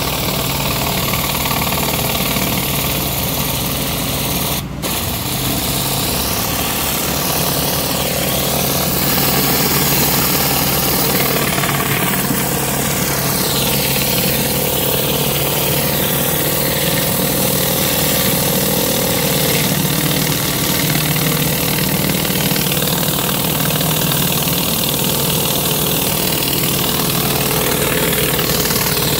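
Pressure washer engine running steadily while a rotary surface cleaner sprays high-pressure water onto concrete, a constant hiss of water over the engine's hum. The sound briefly dips about five seconds in.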